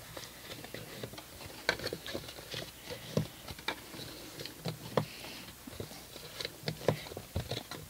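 Cardstock being creased and handled, with a bone folder run along the score lines to reinforce the folds: scattered soft paper clicks, taps and rustles.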